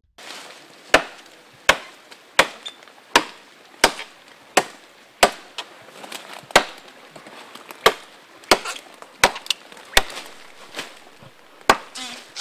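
A regular series of sharp, woody knocks or chops, roughly one every 0.7 seconds, with a couple of slightly longer gaps.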